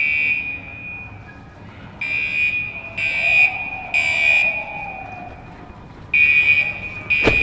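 Building fire alarm horn beeping in groups of three half-second beeps with a pause between, the standard temporal-three evacuation signal. A sharp knock sounds near the end.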